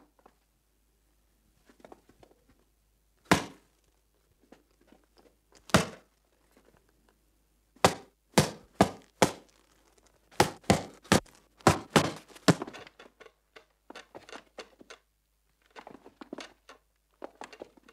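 Boxing gloves landing punches in a sparring bout: two single thuds, then a quick flurry of about a dozen sharp blows. Fainter, lighter knocks and clatter follow near the end.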